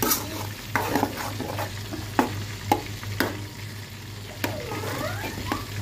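Metal spatula stirring and scraping egg, tomato and onion around an aluminium wok over a frying sizzle, with several sharp clanks of the spatula against the pan.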